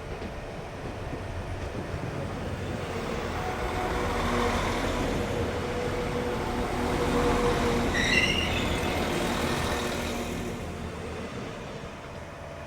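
A train passing along the platform: the rumble of wheels and traction with steady humming tones grows louder, peaks, then fades over about ten seconds. A brief run of high chirps comes about eight seconds in.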